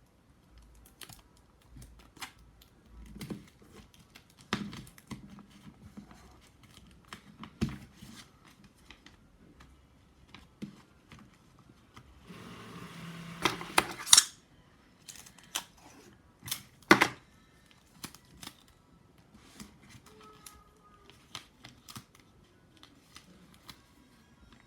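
Paper being handled and folded: scattered taps, clicks and rustles, with a longer ripping or tearing sound about halfway through that ends in a few sharp clicks.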